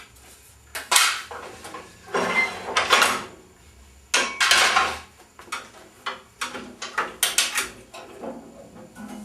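A series of short scrapes and knocks, like hard objects being handled and moved about, in about five separate bursts. No machine is running.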